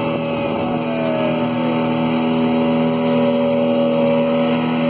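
Speedboat's outboard motor running at a steady, even pitch under way, with the rush of water and wind.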